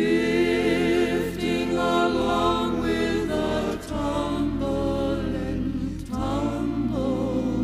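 Music: voices singing long, wavering held notes with no clear words over a steady accompaniment, in an old-style cowboy song, with two short breaks between phrases.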